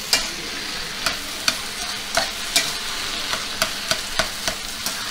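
A spatula stirring ground beef and diced potatoes frying in a skillet: a steady sizzle with irregular scrapes and knocks of the spatula on the pan, about two a second.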